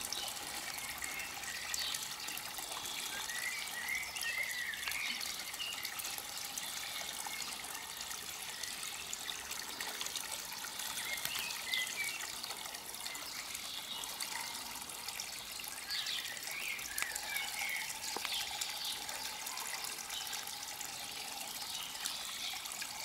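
Water trickling and splashing steadily into a garden fish pond.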